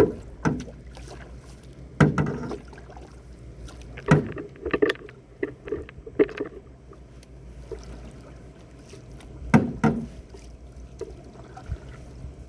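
Canoe paddle strokes: irregularly spaced sudden splashes and knocks as paddles dip and pull through the water, several in a row and a pause before another pair near the end.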